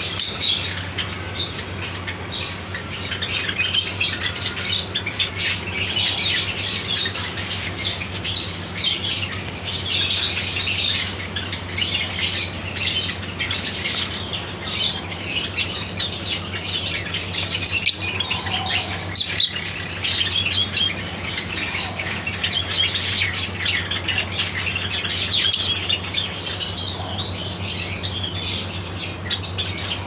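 Violet lovebirds chattering without pause in rapid, high-pitched chirps and squawks, over a steady low hum.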